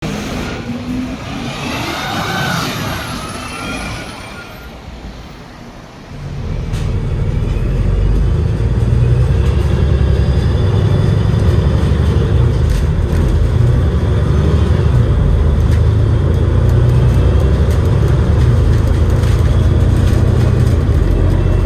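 Enviro500 MMC double-decker bus with a Cummins L9E diesel engine. For the first few seconds there are gliding high-pitched whines over mixed noise. About six seconds in, a low engine rumble rises and then holds steady and loud.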